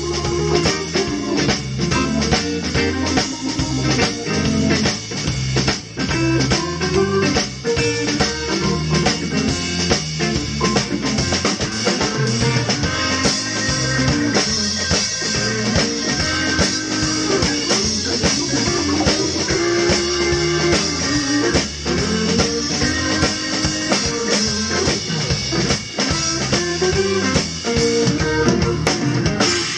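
An organ trio of organ, guitar and drum kit playing an up-tempo blues with a steady drum beat.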